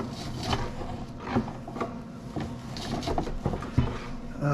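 Irregular knocks, clicks and clatter of hands and tools working on an old welder's metal parts and cables.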